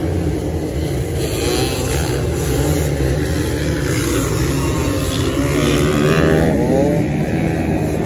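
Dirt bike engines running hard in a beach motocross race, a steady loud drone with the revs wavering up and down around six seconds in.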